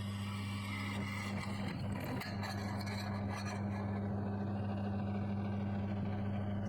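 An electric power tool's motor running with a steady hum. For the first few seconds steel scrapes and grinds against it in short irregular contacts; these thin out after about four seconds, leaving mostly the hum.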